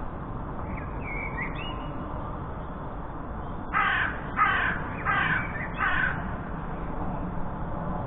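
Jackdaw calling four times in quick succession: short, harsh calls a little over half a second apart, over steady low background noise. A smaller bird whistles faintly about a second in.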